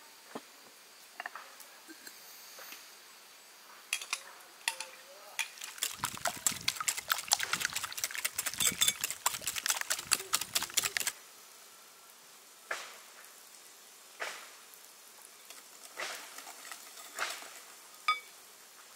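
Wire whisk beating a yellow mixture in a glass bowl: the wires clatter rapidly against the glass for about five seconds in the middle. Before and after the whisking come a few single light clinks and knocks of utensils against the bowl.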